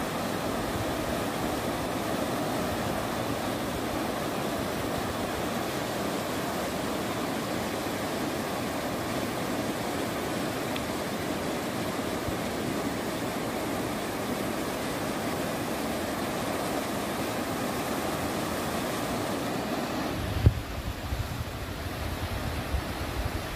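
Muddy river in flood rushing steadily. Near the end the rushing thins out and low wind buffeting on the microphone takes over, with a sharp thump.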